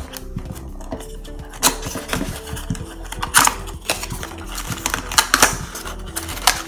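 A small cardboard box being opened by hand: the tab and tuck flaps pulled loose and the inner paperboard insert folded back, with a string of scrapes, rustles and several sharp paperboard snaps.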